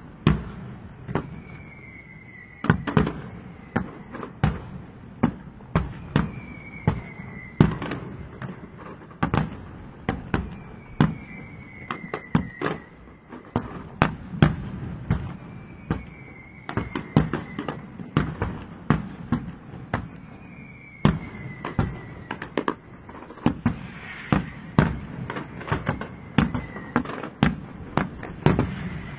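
Fireworks display: aerial shells bursting in quick succession, a steady barrage of sharp bangs several times a second. A short falling whistle recurs every four to five seconds.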